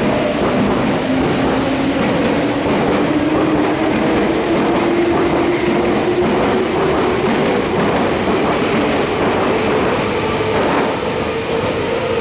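Meitetsu limited express electric train pulling out of the station: a motor whine rising steadily in pitch as it picks up speed, over the rumble and clatter of the wheels on the rails.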